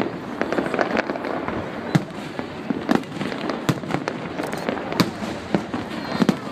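Fireworks display: shells bursting in a quick, irregular series of sharp bangs, about two or three a second, over a continuous dense crackle.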